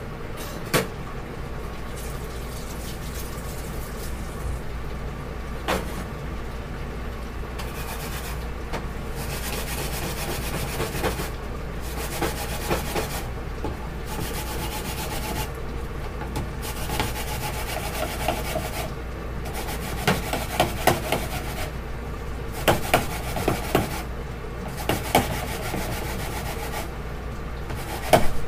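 Hard plastic toy kitchen pieces being handled and moved on a foam play mat: rubbing and scraping of plastic, with scattered sharp clicks and taps that come more often in the second half.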